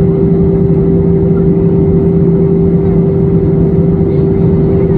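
Airbus A320 cabin noise on approach, heard inside the cabin: a loud, steady drone of engines and airflow, with two steady hums, one low and one higher, over a constant rush.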